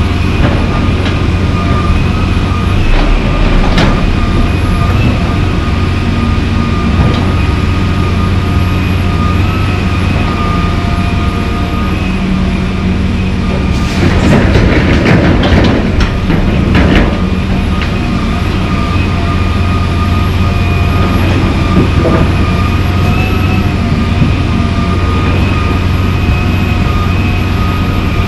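John Deere 350D LC excavator's diesel engine running steadily under working load, a deep drone with a steady high whine over it. About 14 seconds in, a bucketful of broken asphalt chunks is dumped into the dump trailer, clattering for two to three seconds.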